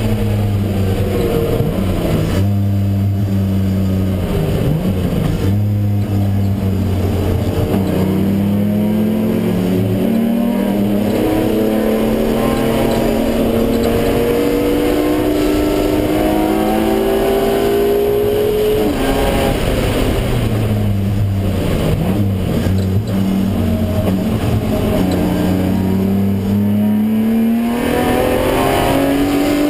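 BMW E36 M3's straight-six engine at full throttle on track, heard inside the cabin. The revs climb through the gears with short dips at the shifts, pull steadily for a long stretch in the middle, drop away with several quick dips and rises about two-thirds through, and climb again near the end.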